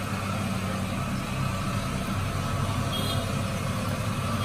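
Steady low engine rumble of road traffic, with onion pakoras sizzling as they deep-fry in hot oil in a kadhai.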